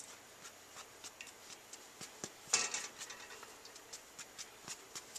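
Small scattered clicks and light scrapes of a plastic cutting board against a stainless saucepan as minced garlic is scraped off it into the pan, with a louder cluster about halfway through.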